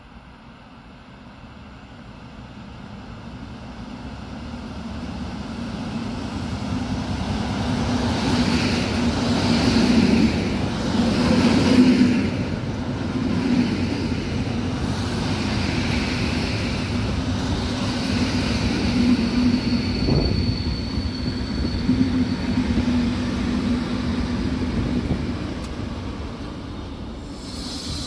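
Two coupled EN71 electric multiple units running along the track. The rumble builds over the first several seconds, then holds steady with a constant hum, and a thin high whine comes in for a few seconds in the second half before the sound eases near the end.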